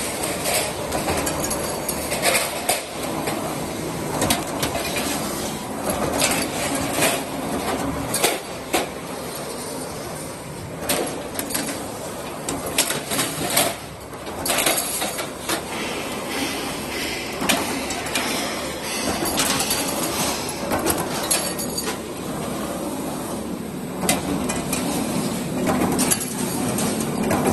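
Metal stud and track roll forming machine running: a steady mechanical noise with frequent, irregular sharp metallic clanks and knocks of steel on steel.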